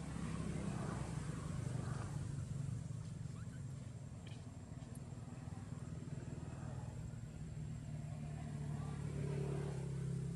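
A motor vehicle engine running with a steady low hum, a little louder near the end, with faint voices in the background.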